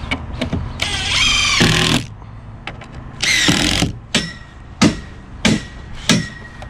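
Cordless drill-driver screwing into formwork timber in two short bursts, its motor whine shifting in pitch, then four hammer blows about two-thirds of a second apart.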